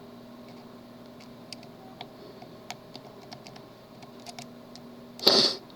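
Faint, scattered light clicks of a tubular lock pick working the pins of a tubular lock, over a low steady hum. About five seconds in there is one short, loud, breathy hiss.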